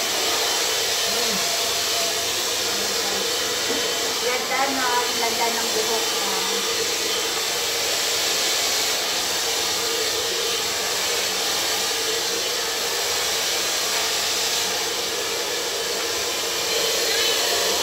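Hand-held hair dryer running steadily, a constant rush of air with a steady motor hum beneath it.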